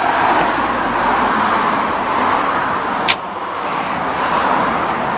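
Road traffic noise, a steady rush that swells in the first couple of seconds as if a car is going by, with one sharp click about three seconds in.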